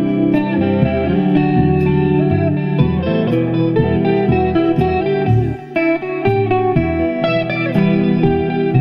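Electric 12-string guitar (upper neck of a double-neck) playing a lead solo in E Aeolian (E natural minor) over a looped chord progression, with bass and drum backing generated by a Digitech Trio+ pedal. The playing eases off briefly about five and a half seconds in.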